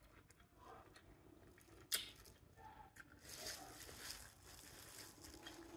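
Faint eating sounds: quiet chewing, then a plastic-gloved hand squishing through wet seafood boil in a glass bowl, with one sharp click about two seconds in.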